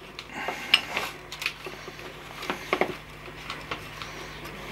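Steel bar rolling thin plasticard strips on a cutting mat, giving scattered light clicks and taps, mostly in the first second and a half and again about halfway through, then quieter.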